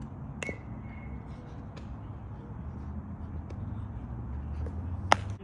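Wind rumbling on the microphone, with a few sharp knocks of a baseball being hit or caught. One knock comes about half a second in, and the loudest comes just before the end.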